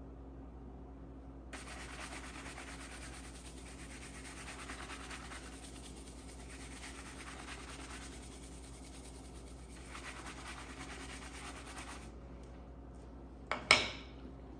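Horsehair shoe brush buffing cream on a leather shoe upper with quick, steady back-and-forth strokes for about ten seconds, with a couple of short pauses. Near the end the wooden-backed brush is set down on the hard countertop with two sharp clacks.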